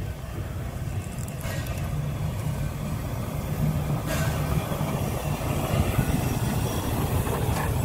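Molli narrow-gauge steam locomotive 99 331 running light past at close range: a low rumble of wheels and running gear on the rails that grows louder as it comes near, with a few short hisses.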